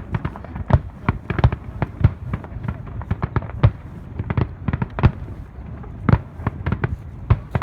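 Fireworks going off in a fast, irregular series of sharp bangs and pops, several a second.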